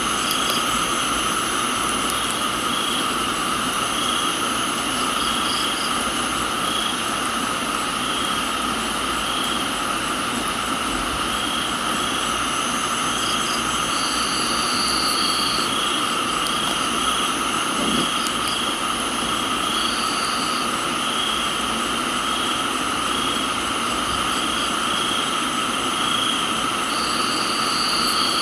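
Steady rain hiss under a dense chorus of crickets and other insects: several continuous high chirring tones, one pulsing at an even rate. A higher short trill breaks in three times, near the middle and again near the end.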